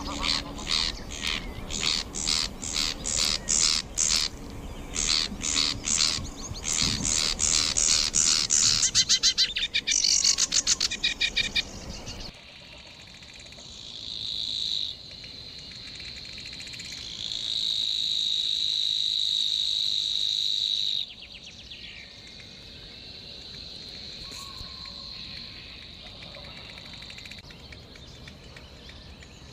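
Small songbirds singing: a rapid series of repeated high chattering notes that speeds up into a fast trill. After an abrupt change about twelve seconds in, a long, even, high buzzing reel comes in two bouts, then the song goes quieter for the last several seconds.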